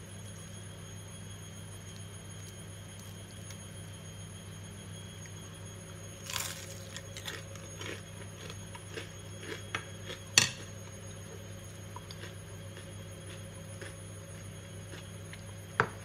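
Crispy battered fried spinach crunching and crackling: a scatter of sharp crunches and clicks from about six to eleven seconds in, the loudest near the eleventh second, and one more crunch near the end, over a steady low hum.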